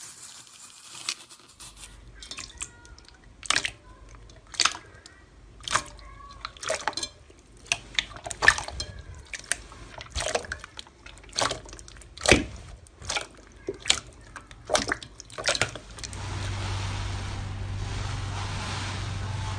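Slime being squeezed and pressed by hand, giving wet pops and clicks about once a second. Near the end these give way to a steady hiss with a low hum.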